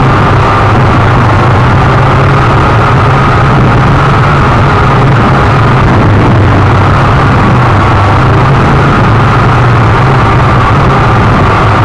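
Syma X8C quadcopter's brushed motors and propellers buzzing steadily in flight, loud and close as picked up on board, with a slight wavering of the motor whine.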